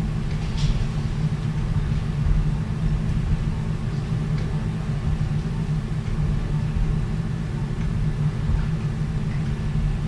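Steady low hum of operating-room equipment during arthroscopic shoulder surgery, with a few faint clicks.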